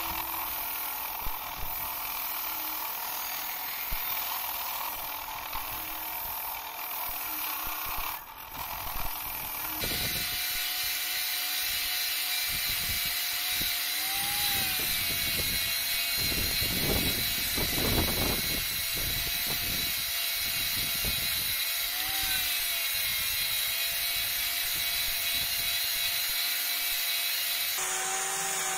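A bench grinder's wire wheel brushes rust off a steel bicycle-pump barrel. About ten seconds in, this gives way to an angle grinder running steadily with an abrasive disc, its motor whining as the disc rubs and scrapes along the steel tube.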